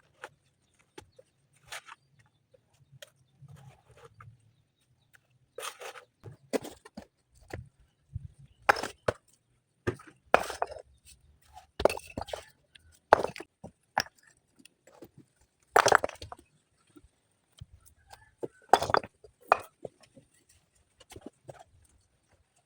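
Irregular sharp knocks and clinks of stone-laying work, stones and hand tools striking one another, with the loudest knocks falling in the middle of the stretch.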